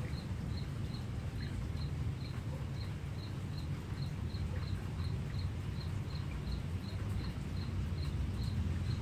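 A cricket chirping steadily, a short high chirp about three times a second, over a steady low rumble.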